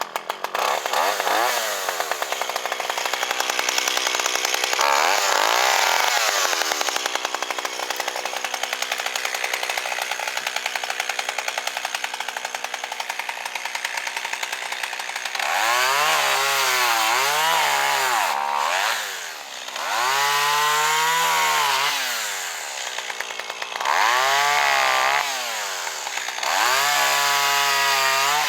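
A two-stroke chainsaw held at high revs for about fifteen seconds, as when cutting through a fallen pine log. It is then revved up and let back down several times, each rise and fall lasting a couple of seconds.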